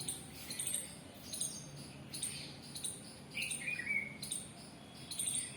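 Birds chirping in short, repeated high calls, with one lower call about three and a half seconds in.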